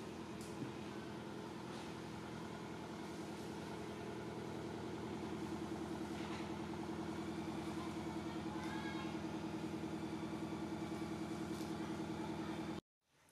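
A motor engine idling with a steady low hum that grows a little louder and pulses quickly from about halfway, then cuts off abruptly near the end.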